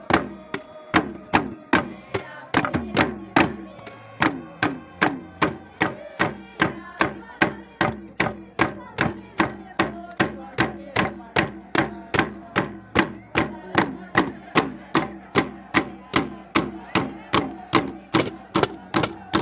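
Drums beaten in a fast, steady rhythm, about three strikes a second, each stroke ringing briefly and dropping in pitch.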